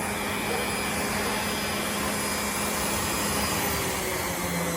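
Small grinder motor running steadily at full speed, free-spinning with nothing against the wheel, as a steady hum under an even hiss.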